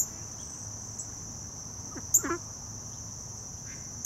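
Steady high-pitched chorus of crickets. About two seconds in comes a single short call that falls in pitch.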